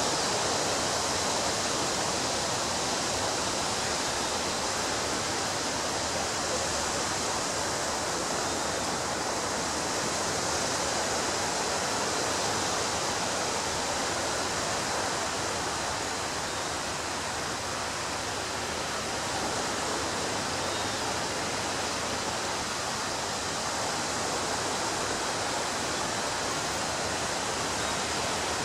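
Ocean surf washing on a beach, heard as a steady rushing hiss that barely rises and falls, with no separate wave crashes standing out.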